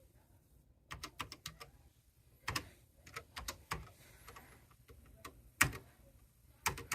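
Keys being pressed on a TRS-80 Model 4 keyboard: irregular single clicks and short runs of clicks, with a faint steady hum underneath.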